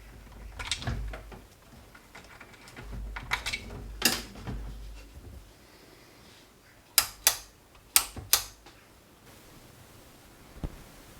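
Hands handling a Commodore 1084S monitor's casing and parts: scattered knocks and scrapes, then four sharp clicks in two quick pairs about a second apart.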